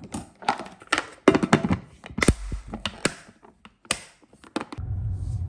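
Clicks and knocks of a glass food-storage container as its plastic lid is fitted, pressed down and latched. Near the end these give way to the steady low rumble of a car cabin.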